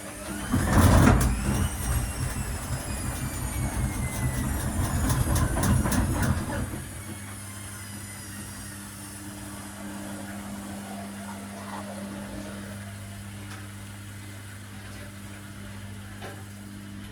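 Electrolux EW1057F washing machine in a short interim spin: the drum runs badly out of balance with heavy rumbling and repeated knocking, loudest about a second in, while the motor's whine falls in pitch as the drum slows. After about seven seconds the rumbling stops and only a steady low hum remains.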